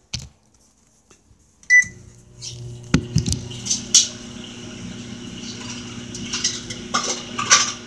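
Microwave oven beeps once as it is started about two seconds in, then runs with a steady hum. A few clicks and knocks sound over the hum.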